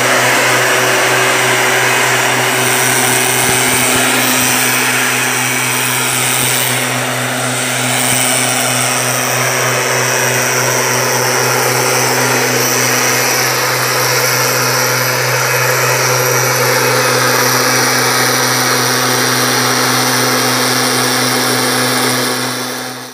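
STIHL backpack mist blower's two-stroke engine and fan running steadily as it blows spray. The sound fades out at the very end.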